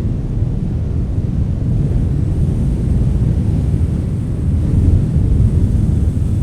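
Strong wind blowing in gusts, a deep low rumble that swells and eases, loudest about five seconds in.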